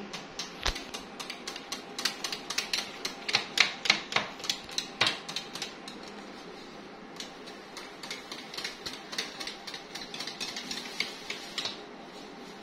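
Beater whisking yogurt and gram flour batter in a bowl: rapid, irregular clicking against the sides of the bowl. It eases off about halfway, then picks up again. This beating works out the lumps.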